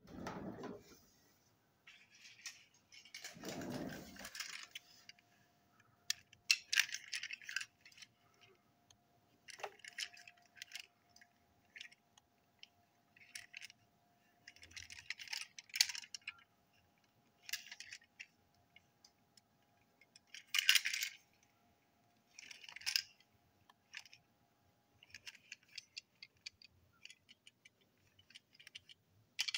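Small plastic TOMY toy train wagons clicking and rattling in the hands as they are turned over and handled, in short bursts every second or two. A dull handling knock comes about four seconds in.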